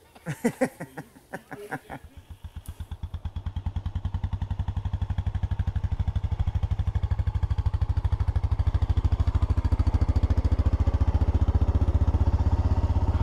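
Four-wheeler (ATV) engine idling with a fast, even putter. It comes in about two seconds in, grows louder over the next few seconds and then runs steadily.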